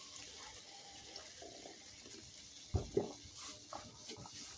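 Mostly quiet, with two short gulps close together almost three seconds in: a man swallowing Coca-Cola.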